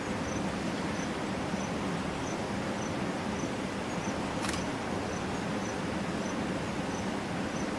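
An insect chirping in an even rhythm, about three short high chirps every two seconds, over a steady low rumble and hiss of open-air background noise. A single sharp click comes about four and a half seconds in.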